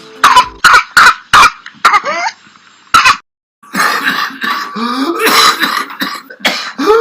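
Whooping cough (pertussis): four quick, sharp coughs, a few more, then after a short pause a long fit of coughing broken by high, rising whooping breaths drawn in. This is the paroxysmal cough with the deep inspiratory whoop that marks the disease.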